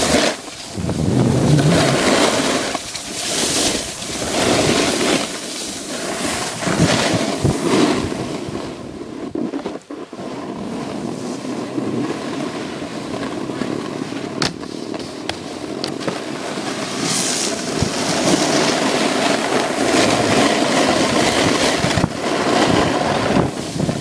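Wind rushing over a moving phone's microphone, mixed with the scrape and hiss of edges carving packed snow on a downhill run, swelling and fading with a few sharp scrapes.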